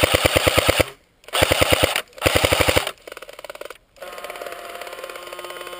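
Airsoft electric gun firing on full auto: three rapid bursts of about fifteen shots a second in the first three seconds. After them comes a quieter rapid rattle and a steady hum.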